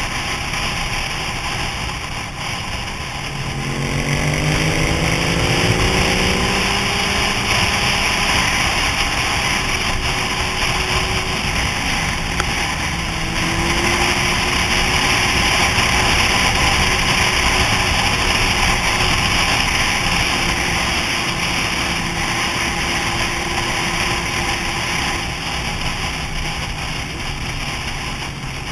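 Sport motorcycle engine pulling hard with its pitch rising about four seconds in, then holding steady at cruising speed around 65 mph. Heavy wind rush on the helmet-mounted microphone.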